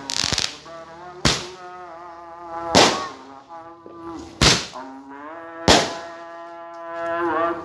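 Aerial fireworks bursting overhead: a quick crackling cluster at the start, then four sharp bangs roughly a second and a half apart. Between the bangs, long held pitched tones sound in the background.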